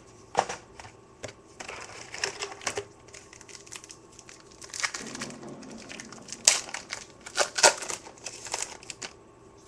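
Crinkling of a Topps Chrome card-pack wrapper and cards being handled, with a few sharp snaps about two-thirds of the way through.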